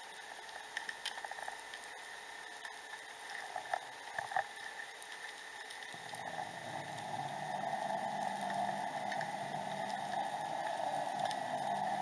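Underwater sound picked up through a camera's waterproof housing: a steady watery hiss with scattered sharp clicks and crackles. About halfway through, a louder rough rushing noise with a low hum under it builds up and holds.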